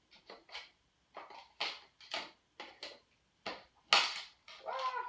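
Plastic packaging crinkling and rustling in irregular bursts as a wrapped item is pulled open and handled, with the loudest crackle about four seconds in.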